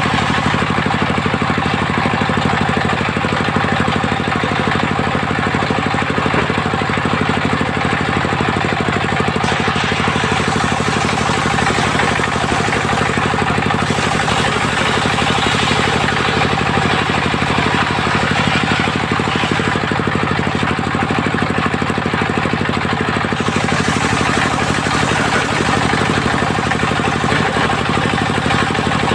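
Mobile circular sawmill running steadily under engine power, its blade working through very hard segawe timber. A harsher high hiss swells twice, about a third and about two-thirds of the way in.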